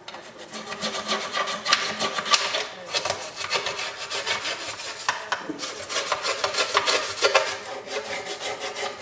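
A brush scrubbing the Bakelite cabinet of a Philco 64 radio in quick, repeated strokes while the soap is rinsed off.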